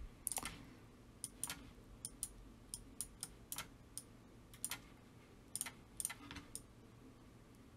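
Faint, irregular clicking of a computer mouse and keyboard at a desk, about fifteen light clicks, often in quick pairs.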